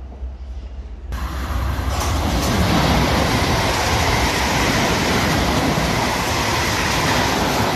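Electric multiple-unit trains, one of them a Class 455, passing close at speed. The rush of wheels on rail jumps up about a second in, holds loud and steady, and eases off near the end.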